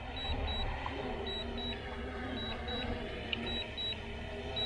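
DJI RC-N1 drone remote controller beeping during an automatic return-to-home landing: short high double beeps, a pair about every second, over a steady low hum.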